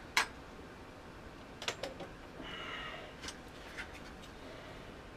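A few light clicks and taps of a screwdriver set being handled on a workbench, the sharpest one just after the start.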